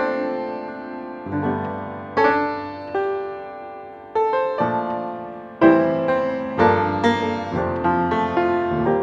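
Background piano music: notes and chords struck one after another and left to fade.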